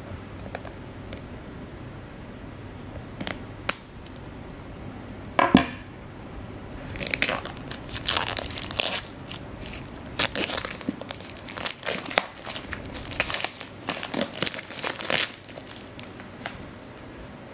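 Clear plastic shrink-wrap being torn and crinkled off a small cardboard product box, in dense crackling bursts for about eight seconds. Before it come a couple of light clicks and one sharp, loud sound about five and a half seconds in.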